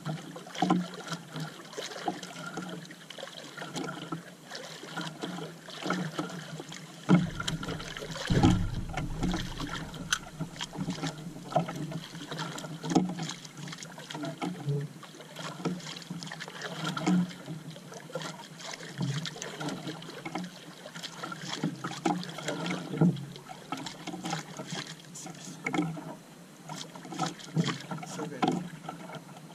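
Water lapping and slapping against the hull of a small outrigger boat, with irregular small knocks and one loud dull thump about seven seconds in.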